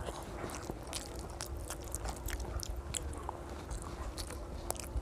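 A child chewing a mouthful of rice and fish-head curry eaten by hand, close up: a run of short, irregular mouth clicks and smacks.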